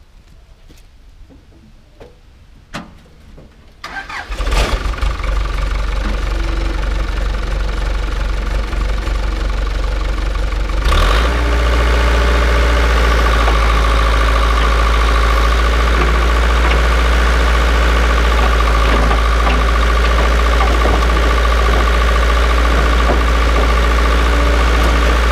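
A few light clicks, then a Case 580 backhoe's diesel engine starts about four seconds in and runs. About eleven seconds in it throttles up and runs steadily, with a deep drone and a steady whine.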